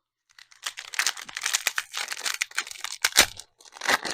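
Trading-card pack wrapper crinkling and being torn open: a dense, continuous crackle with a sharp, loud snap about three seconds in, then more crinkling.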